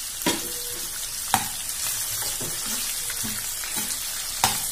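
Vegetables (capsicum, onion, carrot and green chillies) sizzling in hot oil as a steel spoon stirs them, with three sharp clinks of the spoon against the pan: about a quarter second in, at about a second and a half, and near the end.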